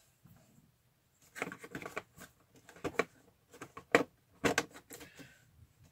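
Fingers tapping and scraping on a cardboard advent calendar box while prying open one of its small doors: a string of short clicks and rustles, the sharpest about four seconds in.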